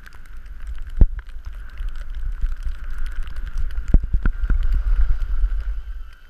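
Skis sliding over snow with a steady rumble of wind on the camera microphone. Sharp knocks come about a second in and again about four seconds in, and the sound dies down near the end as the glide slows.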